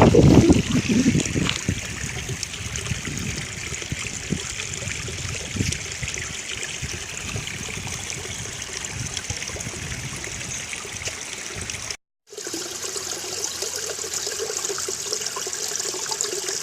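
Creek water flowing and trickling over rocks into a pool, a steady rushing hiss. It opens with a brief low rumble and cuts out for a moment about twelve seconds in.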